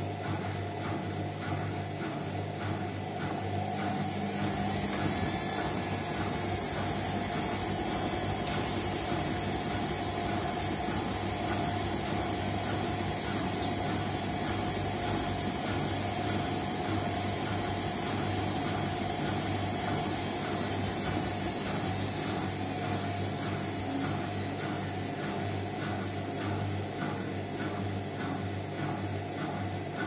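Indesit front-loading washing machine washing a load of towels: the drum motor runs with a steady hum and a quick, regular pulsing.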